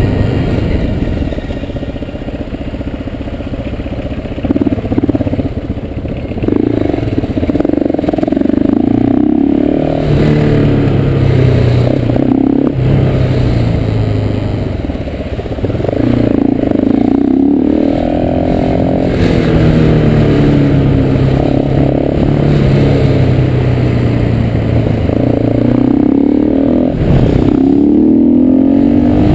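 KTM 690 SMC R supermoto's single-cylinder engine under way, revving up and easing off several times as the bike accelerates and backs off, with the pitch climbing in long rises late on.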